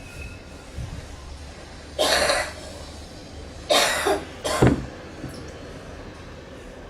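A person coughing three times: one cough about two seconds in, then two close together near the middle, over a steady low background rumble.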